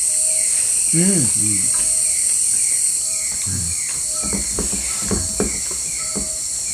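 A steady, high-pitched chorus of night insects such as crickets, with a short low note repeating about once a second. A brief murmur about a second in and a few light clicks in the second half.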